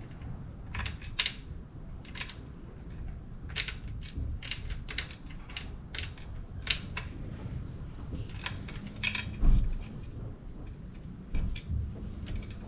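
Irregular metal clinks and clicks of tools and parts being handled, with a heavier thump about nine and a half seconds in.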